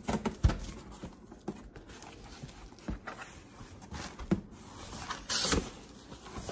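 Hands opening the flaps of a cardboard shipping box and handling the plastic bubble wrap packed inside: a few scattered knocks and thuds, with a louder rustle about five seconds in.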